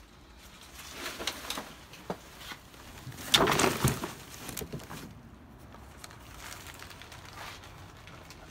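Handling noises: scattered light knocks and rustles, with a louder rustling clatter about three seconds in.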